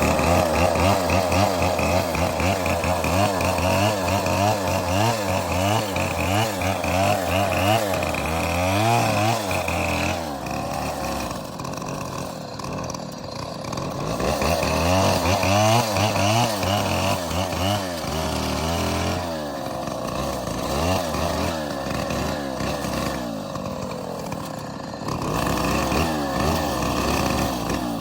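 Two-stroke chainsaw cutting through a palm trunk, its engine speed rising and falling under load. It eases off and runs lower and quieter twice: about ten seconds in, and again about twenty seconds in.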